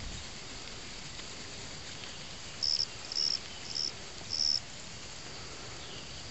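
Insects calling: a steady high-pitched drone, with four short, louder calls in a row about halfway through, each about half a second long.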